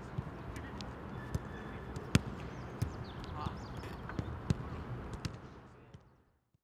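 Footballs being kicked on a training pitch: irregular sharp thuds of boot on ball over players' distant voices and calls. The sound fades out near the end.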